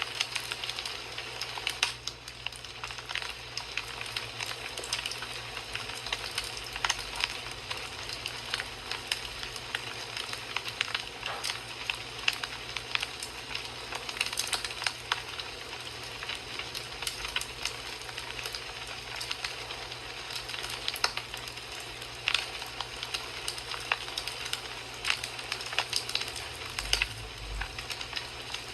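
Wood fire in a fireplace crackling: frequent sharp pops and snaps over a steady hiss.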